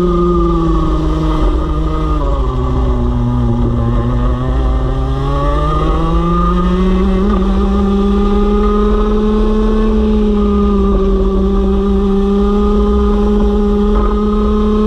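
Two-stroke racing kart engine heard from on board: its pitch falls as the kart slows for a corner, stays low for a few seconds, then climbs and holds high at full throttle, falling again near the end.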